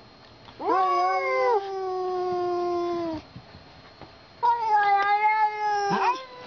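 A cat giving two long, drawn-out meows: the first rises and then holds steady for about two and a half seconds, and the second starts after a short pause and falls away near the end.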